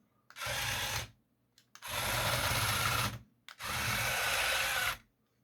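Small RC tracked vehicle driven in three short bursts, each about a second long: its two metal-geared TT gear motors whirring and its print-in-place plastic tracks clattering on a hard tabletop.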